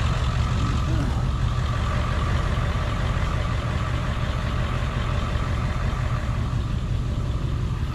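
Idling engine: a steady low rumble with a faint, even whine above it.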